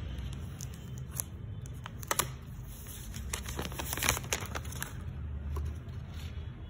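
Plastic packaging film crinkling and crackling as a new smartphone is handled. There are a couple of sharp crackles about two seconds in, and the densest, loudest crinkling comes around the middle.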